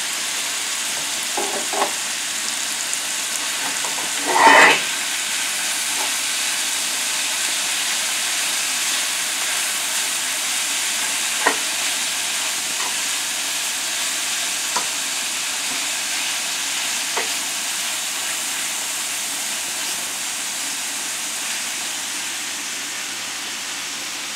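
Ground beef and diced kielbasa sizzling steadily as they brown in a stainless steel skillet. A spatula clicks and scrapes against the pan now and then, with one louder clatter about four and a half seconds in.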